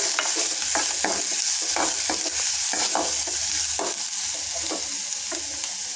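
Chopped small onions, green chillies and curry leaves sizzling in hot oil in a kadai. A steel spoon scrapes and taps against the pan about twice a second as they are stirred.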